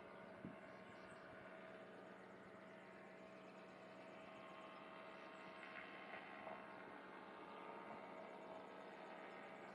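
Near silence with a faint, steady hum and one soft click about half a second in.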